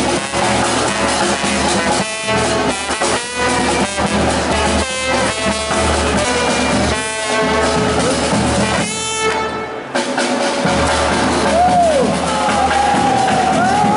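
Music playing, with several arching swoops in pitch over it near the end.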